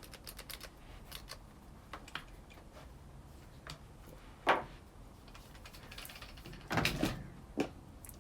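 Light clicks and taps of small parts and tools being handled on a workbench, with a sharper knock about four and a half seconds in and a short cluster of knocks near seven seconds.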